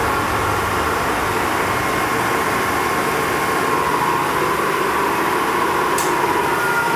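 Lagun FTV-2 CNC milling machine running steadily: an even mechanical hum with a thin whine that dips slightly in pitch after about four seconds. A brief high hiss about six seconds in.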